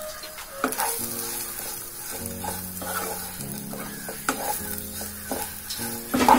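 A wooden spatula stirs and tosses idli pieces in hot oil in a non-stick pan, with a light sizzle and repeated scrapes and knocks against the pan.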